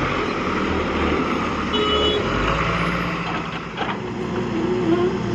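Diesel engine of a JCB 3DX backhoe loader running steadily. A short higher tone sounds about two seconds in, and there is a brief knock a little before four seconds.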